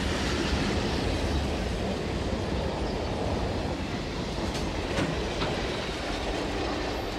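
Boxcar rolling slowly along the rails as it is shunted, a steady rumble of wheels on track with a few faint clicks about five seconds in.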